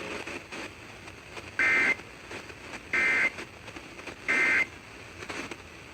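Emergency Alert System end-of-message code: three short bursts of two-tone digital data (EAS FSK signalling) about 1.4 s apart, marking the end of a broadcast warning.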